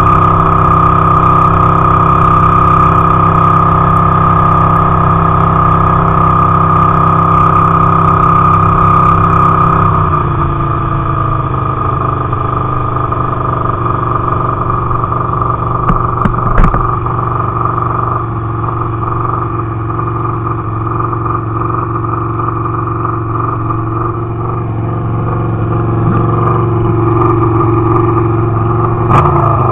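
Motorcycle engine running at a steady speed, then the throttle eases off about ten seconds in and the engine settles to lower revs as the bike rolls on. A brief knock comes midway, and the engine picks up again near the end.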